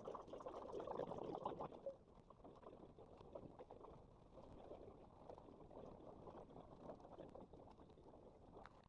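Faint, indistinct background noise of an airport with scattered small clicks, louder for the first two seconds and then steady.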